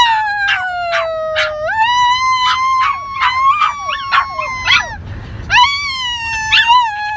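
Two small dogs howling together, with short yips breaking through. There are two long howls: the first fades out about five seconds in, and the second starts again half a second later.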